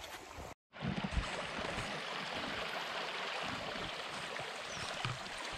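Water running in a stream channel: a steady wash of noise, after a brief cutout about half a second in.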